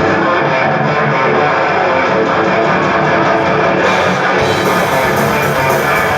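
A band playing loud, guitar-driven rock music live, with a steady, dense wall of sound.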